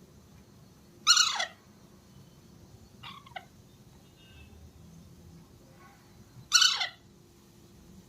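Baby Alexandrine parakeet giving two loud, harsh squawks, each falling in pitch, about five seconds apart. A fainter, shorter call comes between them.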